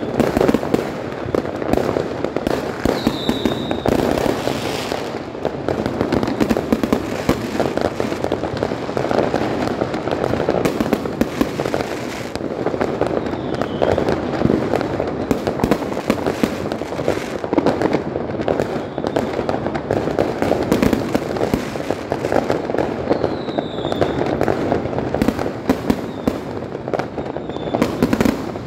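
A dense, continuous barrage of fireworks: many bangs and crackles overlapping without a break, with a few short whistles through it.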